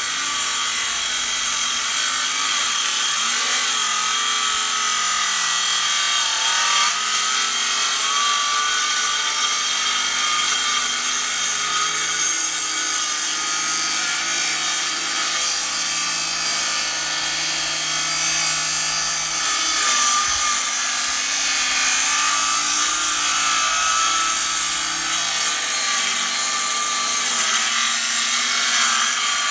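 Electric power tool running continuously as it cuts along the edge of a wooden gate, with a steady whirring note that wavers a little under load.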